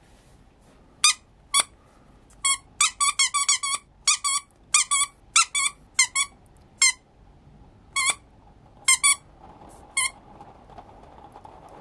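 Squeaker in a plush snake dog toy squeezed by hand over and over, giving about twenty short, high-pitched squeaks in irregular clusters, some in quick runs.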